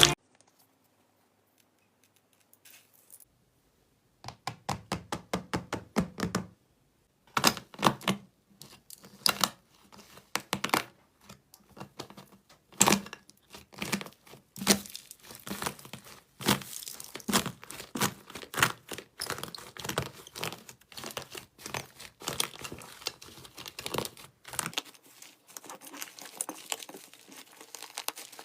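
Slime being worked by hand, giving rapid clusters of sharp crackles and pops that begin about four seconds in after near silence.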